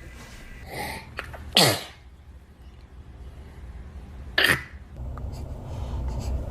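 Two short, sharp sneezes, about three seconds apart.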